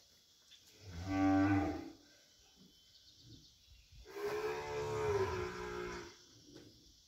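A heifer mooing twice, a short call about a second in and a longer one of about two seconds a few seconds later, in distress as she strains through a difficult calving with the calf being pulled.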